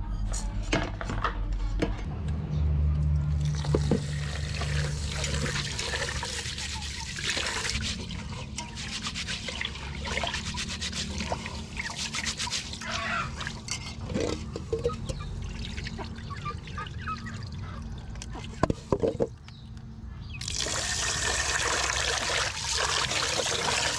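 Raw rice being washed by hand in an aluminium pot: grains rubbed and swished in water with many small clicks and splashes, over a low steady hum. Near the end, water pours steadily into the pot.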